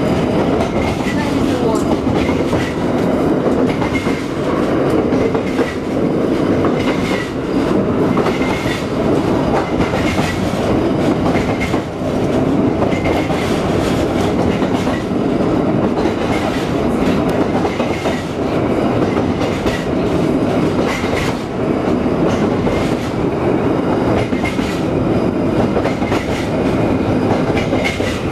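Heritage electric streetcar running along its track, heard from on board: a steady rumble with repeated clicking of the wheels over rail joints.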